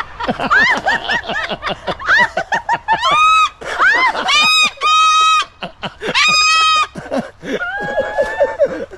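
A cockatoo mimicking human laughter and trading laughs with a woman: a run of quick cackling notes, then several high, squawky rising and held calls, and a lower, flatter call near the end.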